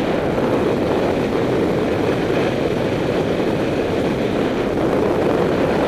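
Steady rushing noise of skiing fast on groomed corduroy: Völkl Kendo skis running over firm snow, with the rush of air past the microphone.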